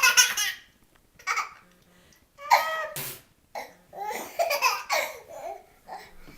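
Short bursts of laughter and babbling, the loudest right at the start and about two and a half seconds in, followed by a longer run of babbling.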